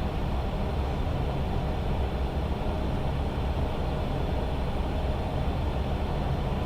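Steady cockpit noise of an Airbus A320 in flight on approach: a low, even rumble with a hiss of airflow over it.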